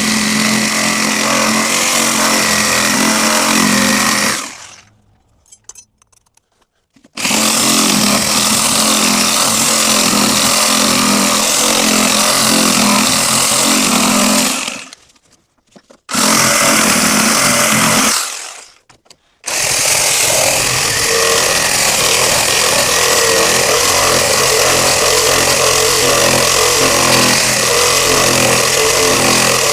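Power saw cutting in four long runs. Each run stops and winds down over about half a second before the tool starts again, and the last run goes on for about ten seconds.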